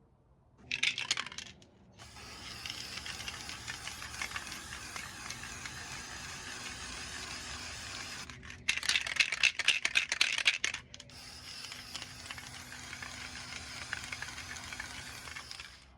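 Metal drawer handles clinking and rattling as they are washed, over a steady hiss like running water; the clatter is loudest briefly near the start and again for a couple of seconds past the middle.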